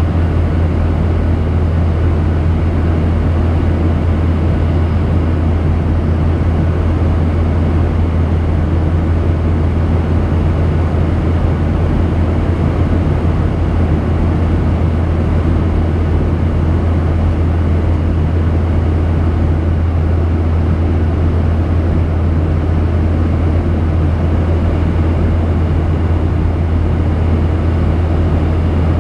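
Steady in-flight cabin drone of a Boeing 737-800, heard from a window seat beside the wing-mounted CFM56-7B turbofan engine, with a strong low hum. The engine noise and the rush of air run on without change.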